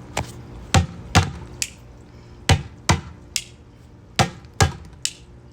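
A drum struck by hand in a repeating rhythm: two deep hits followed by a lighter, sharper one, the pattern coming round about every second and a half to two seconds.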